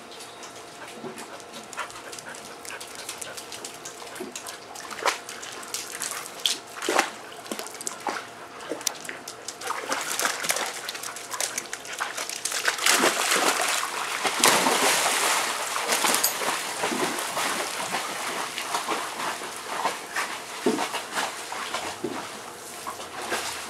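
Golden retriever barking in short, separate barks at a swimming pool, with water splashing that is loudest around the middle.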